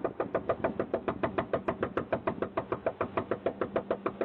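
Rapid, continuous pounding on a front door, about seven even knocks a second, picked up by a doorbell camera's microphone.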